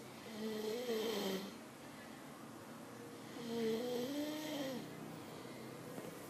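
A man snoring in his sleep: two drawn-out snores about three seconds apart, each with a wavering pitched tone, with quieter breathing between them.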